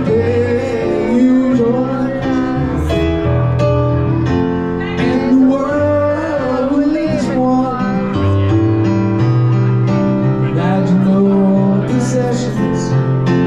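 Music: a song with a sung vocal line over instrumental accompaniment.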